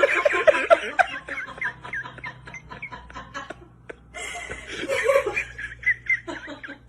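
A person laughing in short snickering bursts, in two bouts with a brief pause about four seconds in.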